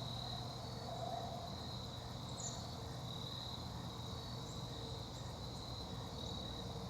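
Steady high-pitched insect trilling, pulsing slightly, over a low steady rumble.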